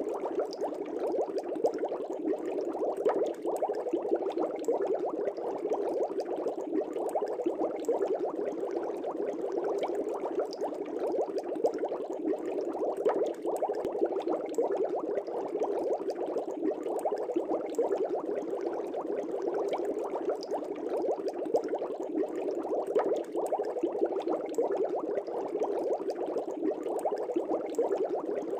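Air bubbles rising through the water of a fish tank: a steady, dense bubbling that keeps on without a break.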